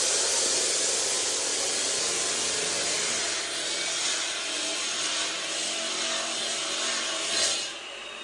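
Handheld electric marble cutter grinding through a concrete kitchen shelf slab with a steady loud cutting noise. About seven and a half seconds in the cutting noise drops away and the motor runs on more quietly.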